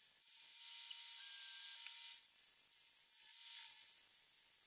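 Milling machine cutter taking a very light finishing pass across the face of a mini lathe tailstock: a steady high whine and hiss of the spindle and cut that rises and falls in loudness as the cut goes on.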